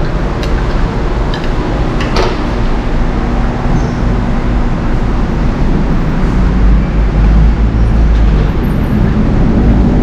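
Steady low rumble of vehicle noise, with a few light clicks in the first couple of seconds, the clearest about two seconds in.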